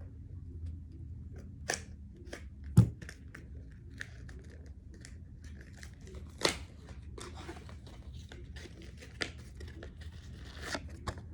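Packaging of a shaggy needle fidget toy being torn and crinkled open: irregular crackles and rustles, with a sharp knock about three seconds in and another about six and a half seconds in.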